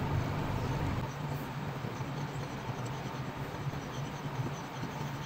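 Newborn kittens suckling at their mother, with faint high squeaks over a steady low hum.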